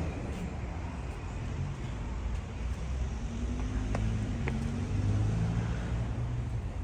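Low rumble of road traffic, with a vehicle engine growing louder around the middle, and two light clicks about four seconds in.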